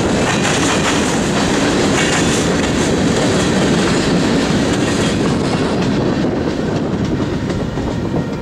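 Freight cars of a passing freight train rolling by, steel wheels clacking over the rail joints in a steady rumble. The last car passes about halfway through, and the clatter then fades as the train moves away.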